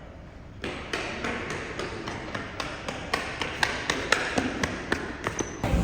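A quick, uneven run of sharp taps or clicks, about three to five a second, starting about half a second in.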